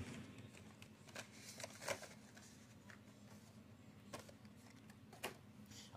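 Near silence broken by a few faint, short taps and rustles, the clearest about two seconds in and again past four and five seconds in: carded Hot Wheels cars in their plastic blisters and the cardboard shipping case being handled.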